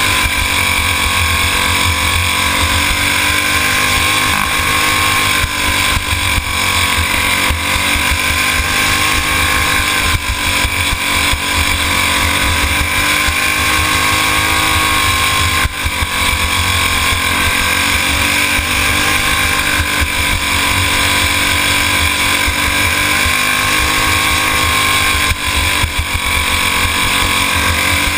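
Go-kart engine running hard, heard from onboard the kart, its pitch rising and falling gently as the driver lifts off and gets back on the throttle through the corners.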